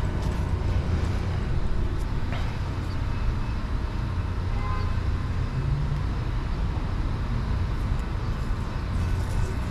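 Steady low outdoor rumble of a parking lot and distant traffic, with a few faint clicks.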